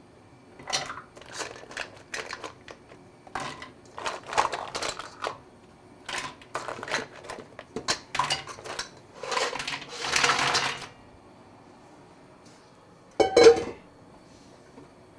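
Mussel shells clattering as handfuls are dropped from a metal bowl into a frying pan, in a run of irregular bursts. Near the end, a single loud metallic clank rings out.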